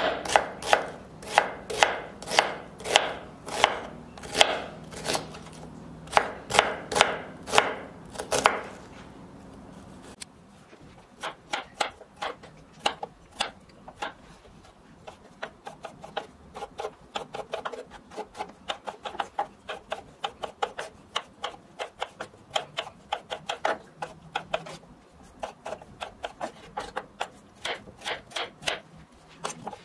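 Kitchen knife chopping an onion on a wooden cutting board, firm strokes about two a second, stopping about eight seconds in. Then lighter, quicker knife strokes slicing and dicing a peeled raw potato on the board.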